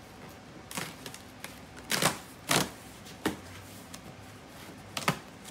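A cardboard shipping box being torn open: packing tape ripping and cardboard flaps pulled back, in about five short sharp rips, the loudest two a couple of seconds in.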